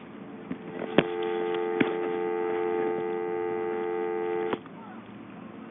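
Telephone dial tone from a hospital telephone's handset: the steady two-note North American dial tone, which starts with a sharp click about a second in, has a second click shortly after, and cuts off suddenly after about three and a half seconds.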